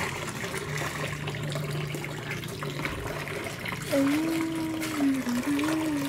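Tap water running into a plastic basin of soapy water, with splashing and sloshing as clothes are hand-scrubbed in it. A wavering pitched hum joins about four seconds in.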